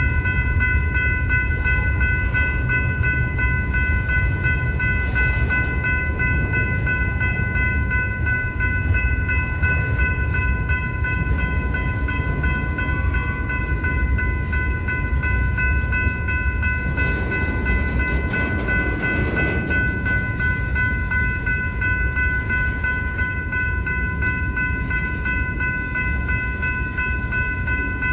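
Union Pacific freight train's covered hoppers and gondolas rolling past with a steady low rumble, while the grade-crossing warning bell rings continuously with an unbroken high ringing tone.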